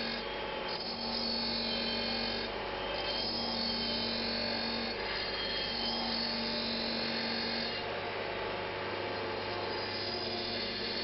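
Electrically driven diamond-impregnated glass-cutting wheel running steadily while crystal glass is cut on it. A grinding tone comes and goes in spells of about two seconds over the wheel's constant hum.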